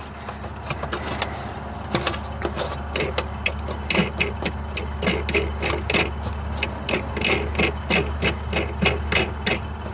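A metal wing nut is being unscrewed by hand from the air cleaner lid over a carburettor, giving a string of small irregular metallic clicks and scrapes, a few a second. A steady low hum runs under it.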